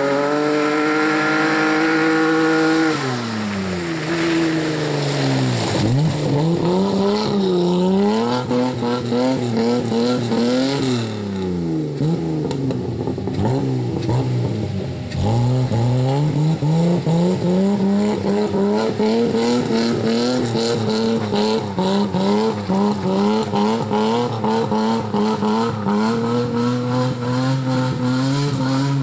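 BMW E30 rally car engine revving hard on a muddy gravel stage, its pitch climbing and dropping through gear changes and lifts. From about halfway the revs hold high with a fast, regular stutter.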